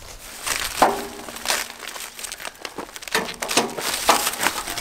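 Clear plastic stretch wrap crinkling and rustling in irregular crackles as it is pulled and bunched by hand off the saw's metal frame.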